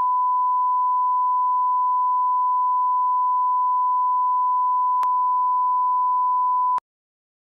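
Steady single-pitched test tone of the kind played with television colour bars, with a brief click about five seconds in; the tone cuts off suddenly near the end.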